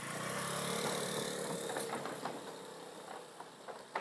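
Small step-through motorbike's engine running as it rides away over a wooden-plank bridge, loudest about a second in and then fading into the distance. Loose deck boards knock lightly under its wheels, with a sharper knock near the end.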